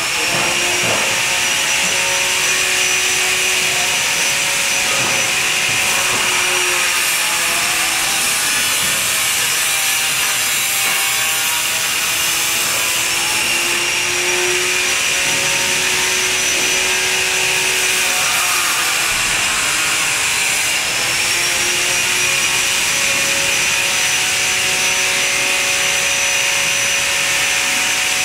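Driverless electric pallet truck (AGV) moving across a warehouse floor: a steady loud hiss and hum with several tones that slowly drift up and down in pitch.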